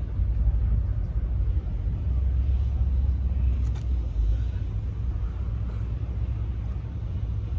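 Steady low rumble of outdoor background noise, with no clear pitch.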